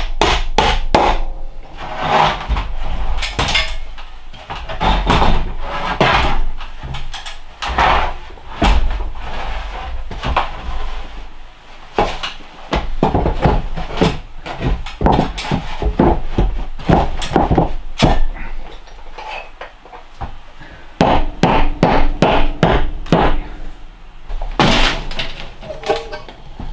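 Hammer driving nails into pine ceiling boards overhead: runs of sharp, quick strikes on wood, several a second, broken by short pauses.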